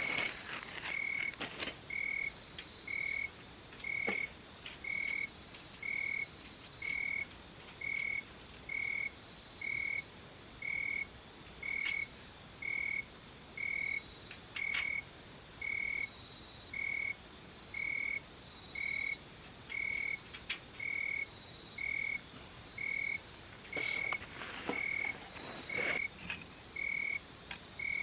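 Frogs calling: short high notes repeated about once a second, with a second, higher-pitched caller answering about every second and a half. A few faint knocks come through, around four seconds in, midway, and near the end.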